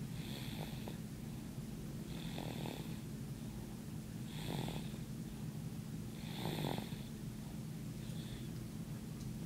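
A sleeping baby snoring, one breath about every two seconds, five in all, over a steady low hum.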